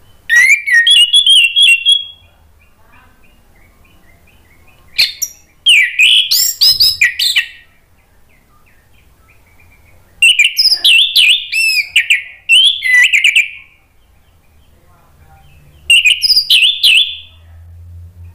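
An orange-headed thrush singing loud, full song in four bursts of quick, high, varied whistles and chattering notes, each lasting one to three seconds, with pauses of a few seconds between.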